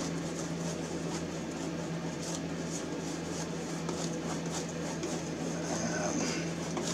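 Wide bristle brush scrubbing glaze across a stretched canvas in soft, irregular swishes, over a steady low electrical hum.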